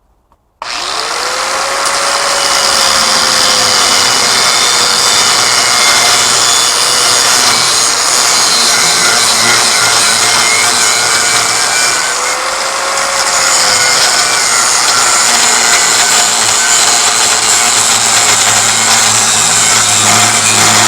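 Electric power tool cutting through the grinder pump's metal along a weld, starting abruptly about half a second in and running loud and steady, its motor whine sagging and recovering as it bites.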